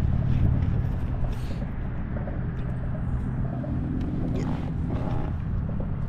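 Steady low drone of a nearby boat's engine running, with a few faint rustles of handling.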